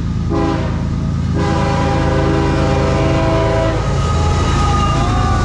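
CSX freight locomotive's air horn sounding for a grade crossing: a short blast, then a long blast that stops about four seconds in, over the rumble of the diesel locomotive drawing close and passing.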